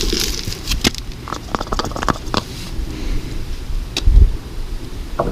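Handling noises as oil filling finishes: the oil bottle and funnel clicking and tapping, with a dull thump about four seconds in.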